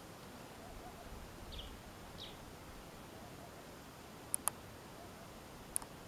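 Quiet outdoor ambience with two short, high, downward bird chirps in the first half. Sharp clicks follow, a close pair past the middle and one more near the end.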